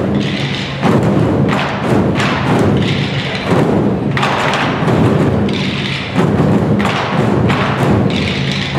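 An ensemble of Chinese red barrel drums (tanggu) beaten together with sticks, a dense, continuous stream of drum strokes.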